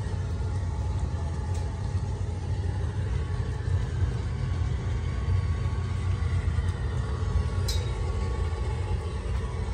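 A steady low rumble, with a faint tick about eight seconds in.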